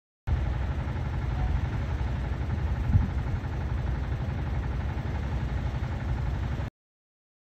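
Wind buffeting a handheld microphone on an exposed sea cliff: a steady low rumble, with one brief louder gust about three seconds in.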